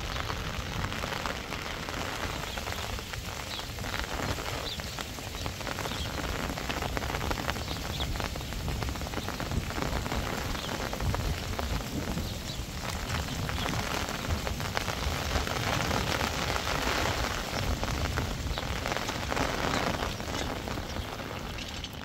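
Heavy rain falling steadily on surfaces, with scattered drop ticks and a low wind rumble underneath; the downpour grows a little louder in the second half.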